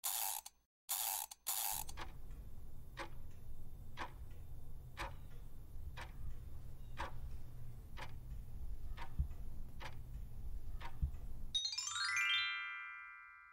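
Quiz countdown timer sound effect: a clock ticking about once a second over a low music bed, ending in a rising chime that rings out and fades. It opens with three short swooshes.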